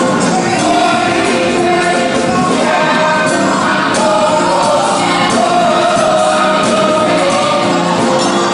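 Gospel choir singing in full voice, backed by a live band of drums, bass and keyboards.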